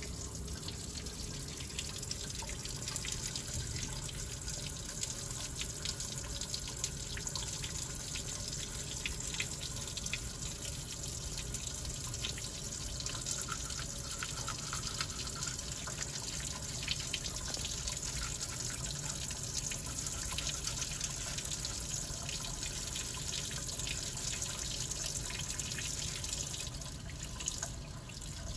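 Tap water running steadily into a large porcelain utility sink, splashing as a denture is scrubbed with a toothbrush under the stream.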